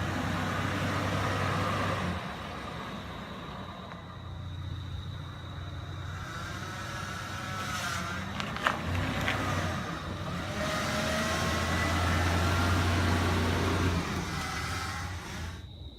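A car running on the road, its engine hum swelling and easing off, with a sharp click about nine seconds in. The sound cuts off abruptly at the end.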